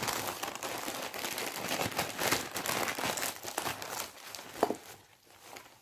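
Plastic courier mailer and bubble-wrapped package crinkling and rustling as they are pulled open and handled by hand. The rustling is dense for about four seconds, then dies down to a single faint crackle.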